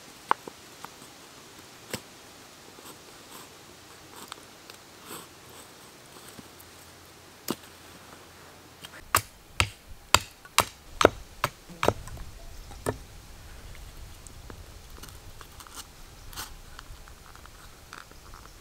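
Scattered light clicks and knocks, then a quick run of about eight sharp knocks about nine to thirteen seconds in.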